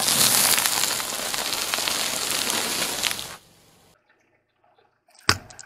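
A car tyre rolls over and crushes a row of brittle pink sticks, a loud, dense crackling crunch that starts abruptly and stops after about three and a half seconds. Near the end comes one sharp crack as a car tyre crushes a plastic toy kaleidoscope.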